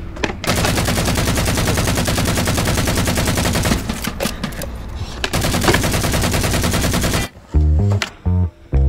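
Video-game automatic rifle fire, a long rapid stream of shots that thins out about four seconds in and picks up again, stopping about seven seconds in as bass-heavy music starts.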